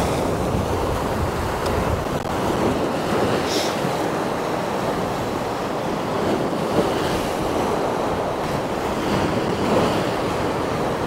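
Sea swell surging and breaking on rocks, with steady wind noise on the microphone.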